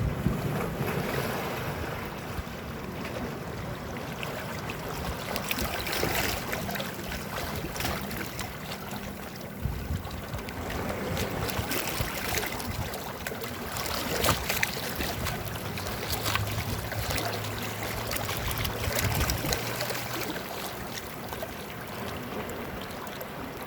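Sea water washing against the shore in irregular swells, with small splashes, and wind buffeting the microphone. A low steady hum joins for a few seconds past the middle.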